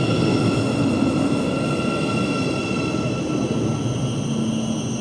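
Thameslink Class 700 electric multiple unit running through the platform, the rumble of its wheels on the rails under a steady high-pitched electric whine from its traction equipment.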